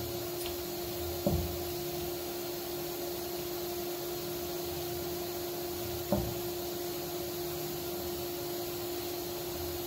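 Hand working dry flour and curd in a steel bowl, with two light knocks against the bowl, about a second in and about six seconds in, over a steady background hum.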